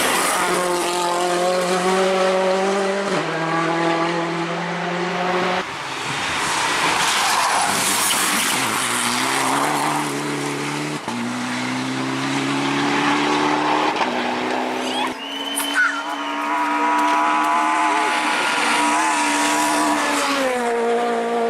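Ford Fiesta rally cars driven flat out, their engine note holding or climbing and then stepping down at each upshift, several times over. For a few seconds the loud rush of tyres sliding on loose gravel rises over the engine.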